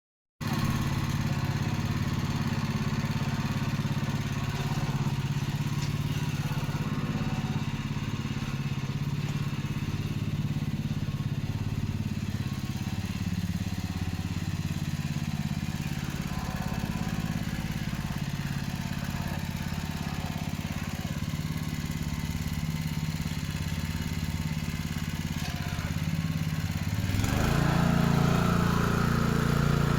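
Single-axle walking tractor's small engine running steadily, rising in pitch and getting louder as it speeds up near the end.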